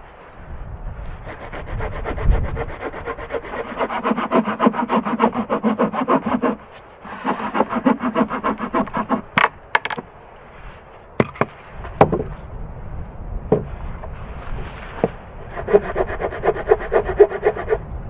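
Hand saw cutting a dry log in quick back-and-forth strokes. There are three spells of sawing, and a few separate sharp wooden knocks in the pause in the middle.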